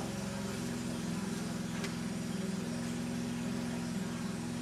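An engine running steadily at an even speed, its fast firing pulses unbroken throughout.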